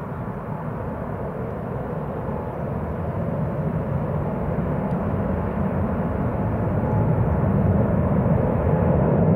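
Jet engines of a United Airlines Boeing 777 at takeoff thrust, a steady rumble growing louder as the aircraft rolls down the runway.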